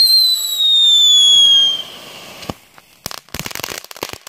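Happy Wonder ground firework whistling loudly, one high shriek sliding down in pitch that cuts off after about two seconds. After a pop, it gives a dense burst of crackling for about a second near the end.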